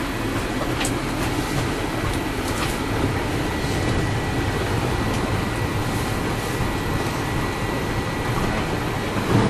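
Steady road and engine rumble inside a moving ambulance's patient compartment.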